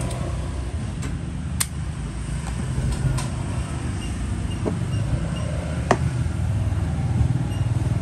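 Steady low motor rumble, like nearby engine traffic, with about four sharp clicks scattered through it.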